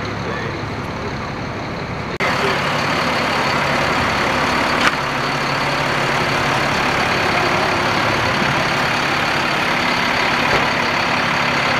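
Diesel engines of military cargo trucks idling, a steady low rumble. About two seconds in the sound steps up louder with more hiss, and a single sharp click comes about five seconds in.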